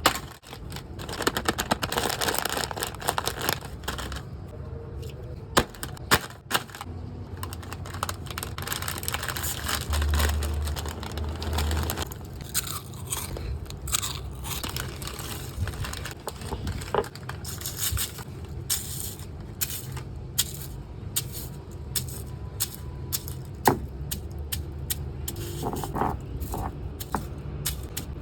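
Close-miked chewing and crunching of a puffed corn snack, with many sharp crackles and snaps of bites throughout.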